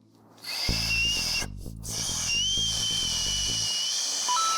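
A man whistling loudly, a high, breathy whistle with a lot of air hiss, as hard as he can for a loudness test. It gives a short blast, breaks off briefly, then holds a longer whistle that rises a little in pitch. Low music plays under it, and a steady beep-like tone comes in near the end.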